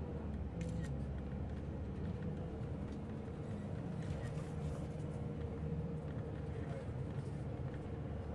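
Heard from inside a moving bus: a steady engine hum and road rumble, with a faint steady whine over it.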